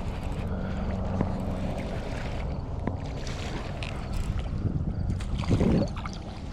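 Boat engine running steadily with wind buffeting the microphone, and a brief louder low sound about five and a half seconds in.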